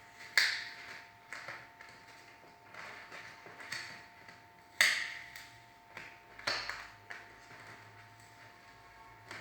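A string of sharp clicks and light knocks, about ten, irregularly spaced, each ringing briefly. The loudest come about half a second in and near the middle, over a faint steady hum.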